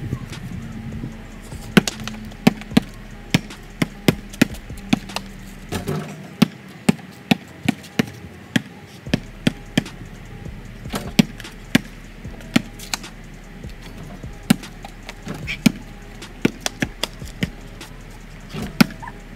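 A basketball being dribbled on pavement: a steady run of sharp bounces about two a second, with a short lull about two-thirds of the way through.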